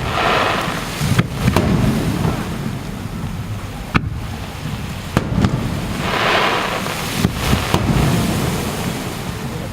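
Aerial fireworks shells bursting: a run of sharp bangs over a low rumble, with two spells of fizzing crackle, one at the start and one about six seconds in.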